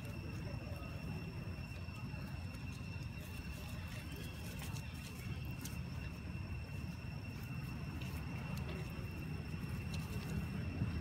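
Outdoor background: a steady low rumble under a steady high-pitched whine, with faint scattered clicks and rustles.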